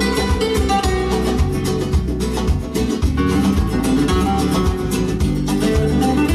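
Guitar music with a strong bass line, played back through a pair of Vandersteen Model 2Ci loudspeakers.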